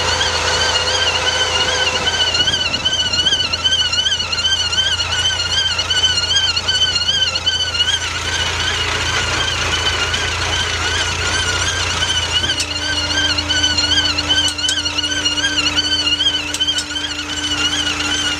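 Rover Mini front left hub's plastic dust seal squealing as the wheel turns: a steady, metallic-sounding squeal that wavers up and down in pitch in a regular cycle. It is the sign of the dry dust seal rubbing, a noise that grease injected from the inside stops. A lower steady tone joins about two-thirds of the way through.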